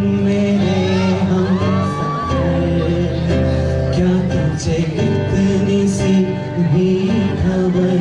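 Live male singing of a romantic Bollywood song over guitar accompaniment, with a melodic line that climbs to a held note about two seconds in.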